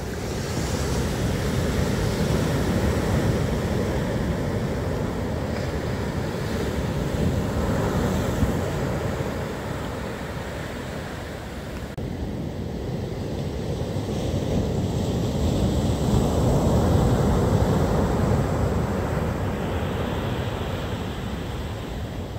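Rough storm surf breaking and washing up the beach, rising and falling in slow surges with each wave, loudest about three-quarters of the way through. Wind rumbles on the microphone throughout.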